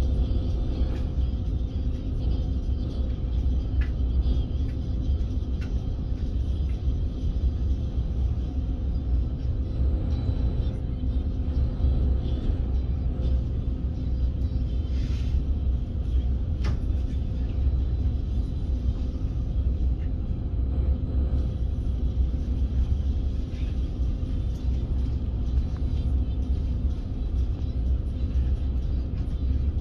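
Steady low rumble with a constant faint hum from a train standing at a station, heard on board. A brief hiss and a single click come about halfway through.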